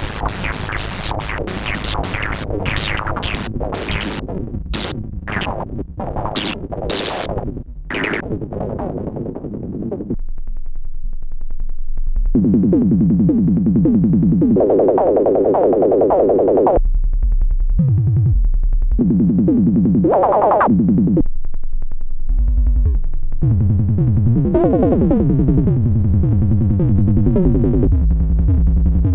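Behringer MS-1 (MS-101) analog monophonic synthesizer playing. First comes a run of short, plucky notes that lose their brightness over the first eight seconds or so. About ten seconds in it moves to a lower, louder bass line whose tone keeps brightening and darkening as the filter is turned.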